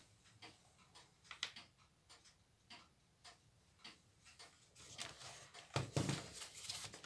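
Light scattered clicks and taps of small screws and plastic parts being handled on an opened Shivaki VCR, then a louder stretch of handling noise about five to six seconds in.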